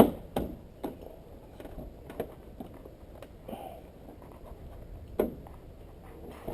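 Scattered knocks and clicks of car body parts and tools being handled while fitting a car's bumper trim mounts, the sharpest at the very start and a few more spread over the following seconds.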